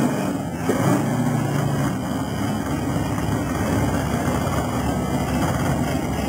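Drag race car engines idling and rumbling steadily near the starting line of a drag strip, heard through an old camcorder's built-in microphone.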